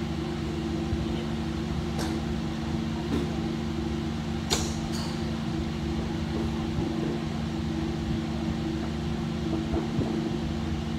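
Steady mechanical hum with two steady tones. Over it come a few sharp golf club strikes on balls at a driving range: one about two seconds in, one about three seconds in, and the loudest about four and a half seconds in with a high metallic ring.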